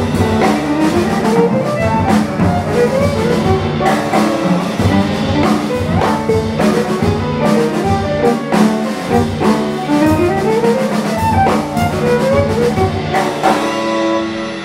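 Jazz trio of violin, piano and drums playing an original tune live: bowed violin lines with quick rising runs over busy drum kit and cymbal work.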